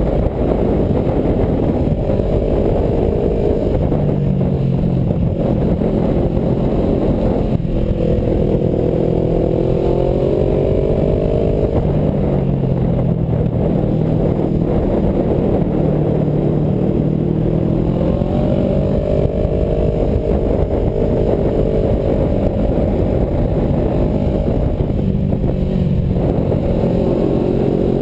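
Motorcycle engine running under way, its pitch rising and falling slowly every few seconds as the revs change through the bends, under a steady low rush of wind noise on the microphone.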